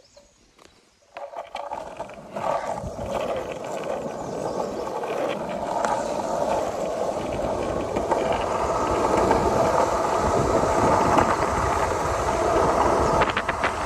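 Longboard wheels rolling on asphalt down a hill. The rolling noise starts about a second in and grows louder as speed builds, with strong wind on the microphone.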